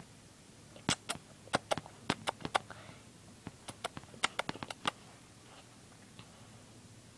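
Kissing noises made with the lips: a quick run of sharp, wet smacks, about fifteen in two bursts, one from about one to three seconds in and another from about four to five seconds in.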